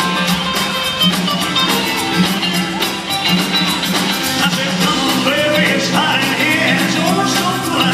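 Live band playing an upbeat song with a steady beat and guitar, heard through a concert hall's sound system. A lead singer's voice comes in about halfway through.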